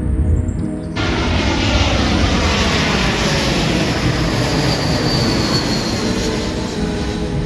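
Jet engines of a JetBlue Airbus A320 airliner arriving on approach: a loud, steady rush with a high whine that slides slowly down in pitch as it passes. The sound cuts in abruptly about a second in.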